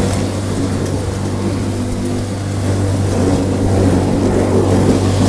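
Tornado electric feed crusher (drobilka) running under load, shredding a bale of straw: a steady low motor hum under the dense noise of the chopping, slightly louder about halfway through.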